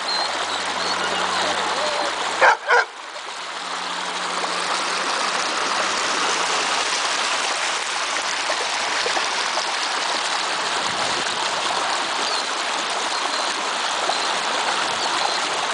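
Stream water rushing steadily over rocks, with a single short bark from the Labrador about two and a half seconds in.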